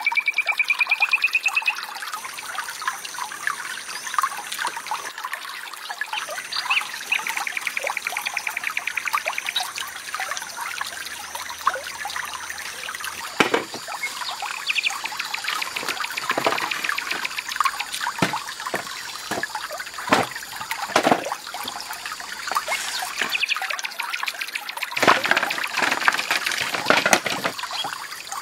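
A small stream trickling steadily, with a high pulsing trill near the start and again a few seconds later. From about halfway come scattered hollow knocks of bamboo poles being handled and set down, bunched near the end.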